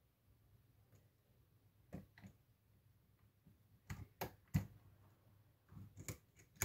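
Scattered light metallic clicks of a lock pick and tension wrench working the pin stack of a custom challenge lock cylinder. A pair of clicks comes about two seconds in, three quicker, louder ones around four seconds, and a few more near the end.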